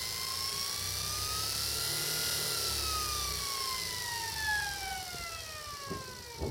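High-pitched whine, with several overtones, of a SepEx DC starter-generator motor spinning at high RPM with no load. The pitch rises slightly, then falls steadily as the motor winds down, with a few light knocks near the end.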